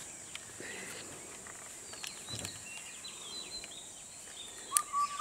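Forest ambience: a steady high insect drone with faint bird chirps. Near the end a click is followed by a clear, steady whistled note.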